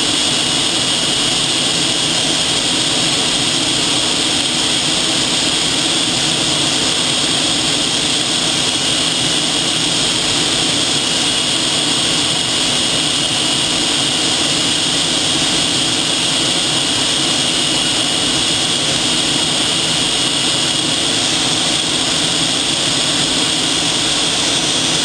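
Military jet in flight heard from inside the cockpit: steady engine and airflow noise with a constant high whine.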